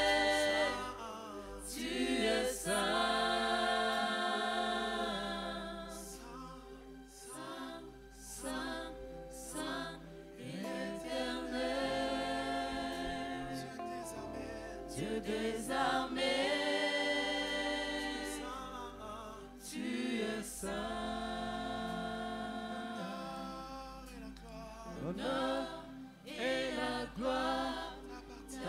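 A group of voices singing a slow French worship song in long held chords, with short breaks between phrases.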